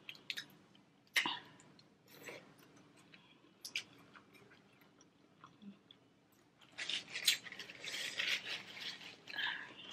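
Close-miked eating sounds: boiled crawfish shells cracking and peeling by hand, with wet chewing and a few sharp clicks. Near the end comes a few seconds of paper towel rustling.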